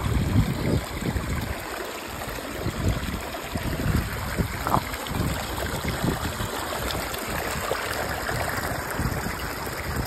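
Shallow mountain stream running fast over rocks close to the microphone, with water sloshing around a hand held in the current. A few low thumps come in the first second.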